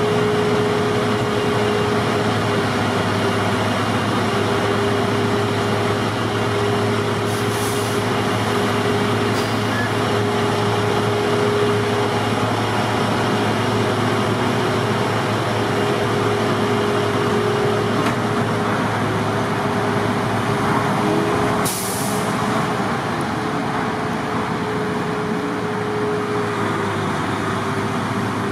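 Snowblower-equipped wheel loader running steadily, its diesel engine and blower giving a continuous drone with a steady whine. Short hisses break through about 7 seconds in and again near 22 seconds.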